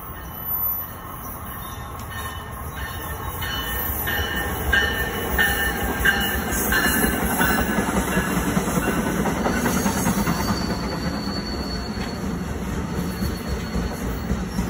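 NJ Transit Multilevel commuter train coming along the far track: a rumble of steel wheels on rail that builds as it comes close, with a string of short high squeaks and clicks near the middle, then settles to a steady rumble as the coaches roll past.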